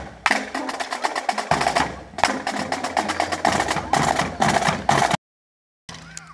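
Marching drumline of snare drums and bass drums playing a fast cadence of rapid strokes, with a brief break about two seconds in. It cuts off abruptly about five seconds in.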